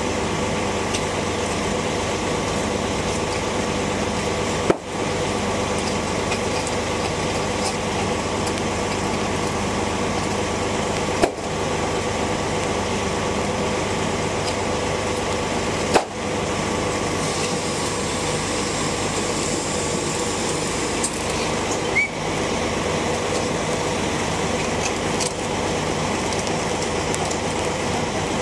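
Cat C15 diesel engine of a CAT 374 crawler excavator running steadily. A handful of sharp knocks break in, a few seconds apart.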